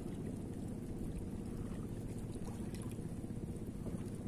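Steady low rushing of small waves lapping at a rocky seashore, with no single event standing out.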